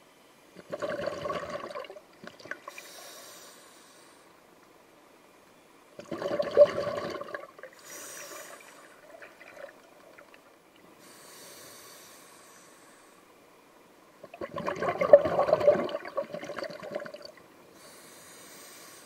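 Scuba diver breathing through a regulator underwater: three bubbling exhalations, each one to three seconds long and about seven seconds apart, with a fainter high hiss of the regulator's inhalation between them.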